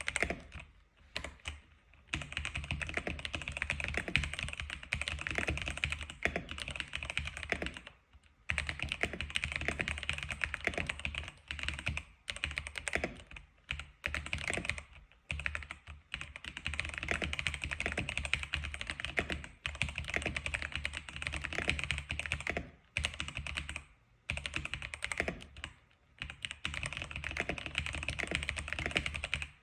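X87 keyboard being typed on quickly and continuously, a dense run of key clicks broken by a few short pauses.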